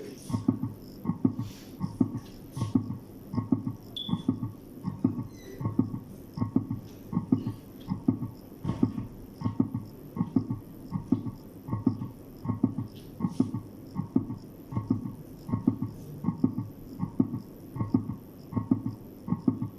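Simulated heart sounds from an auscultation mannequin, beating steadily a little faster than once a second, with an extra short click in systole between the first and second heart sounds. This is a systolic click, the finding typical of mitral valve prolapse.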